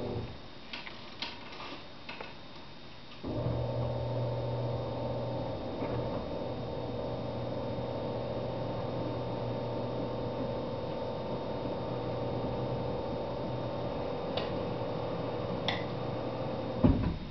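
A steady electric motor hum, as from a household appliance, starts about three seconds in after a few faint clicks and runs evenly until it stops with a sharp knock near the end.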